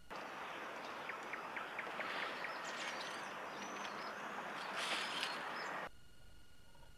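Outdoor lakeside ambience: a steady hiss with small birds chirping and a run of short ticks over it. It cuts off abruptly about six seconds in.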